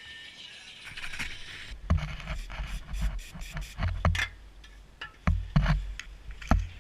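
Irregular clicks, knocks and scrapes with low thuds, starting about two seconds in after a quiet hiss.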